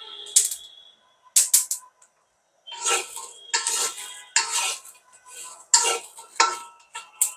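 Wooden spatula scraping and turning chopped green chilies in a metal wok, in a series of short, irregular scrapes and clatters against the pan.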